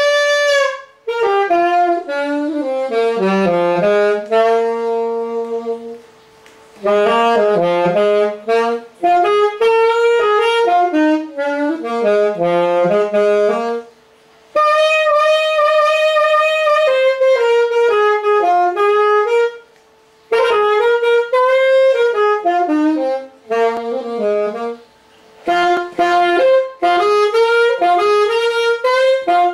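Yamaha YAS-280 alto saxophone played solo: a melody in phrases of several seconds, with brief pauses for breath between them and some long held notes.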